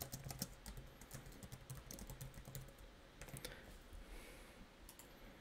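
Faint computer keyboard typing: a quick run of keystrokes that thins out to a few scattered taps after about three and a half seconds.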